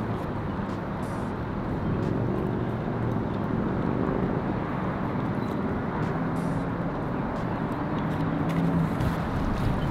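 Steady hum of distant road traffic rising from the town below, with faint engine tones drifting up and down in pitch.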